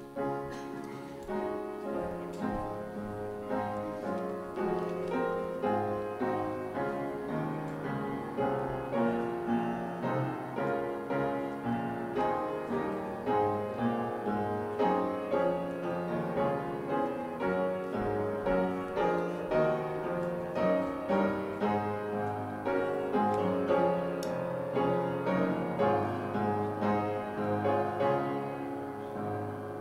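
Piano playing offertory music: slow, held chords, with a swell of notes struck about once a second.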